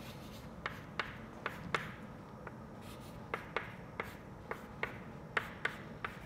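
Chalk writing on a blackboard: a string of short, irregular taps and scratches as the letters are formed.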